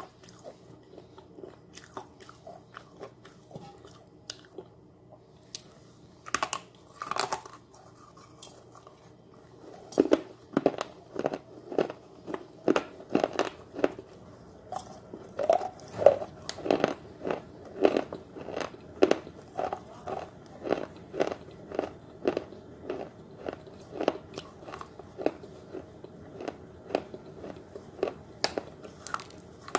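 A person chewing and crunching pieces of a baked, unglazed clay pot close to the microphone. There are faint small clicks at first, then from about ten seconds in steady chewing crunches come about twice a second.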